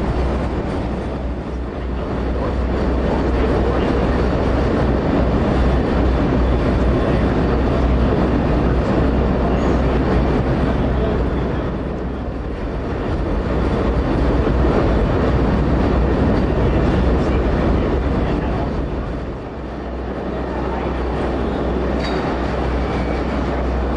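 Train ride heard aboard a passenger car behind Alco diesel locomotives: a loud, steady rumble and rattle of wheels on rail over a low drone, easing off briefly twice.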